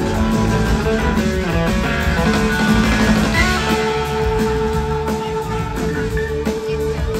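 Live blues-rock band playing, electric guitar to the fore over drums, keyboards and percussion, heard from the audience. About halfway through a long note comes in and holds.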